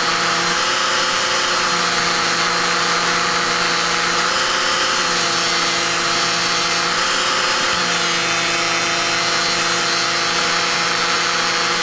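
Dremel rotary tool running at a steady speed, its buffing wheel charged with polishing compound held against the steel feed ramps of an M4 barrel extension, buffing out tool marks: a steady motor hum with a hiss of the wheel on the metal.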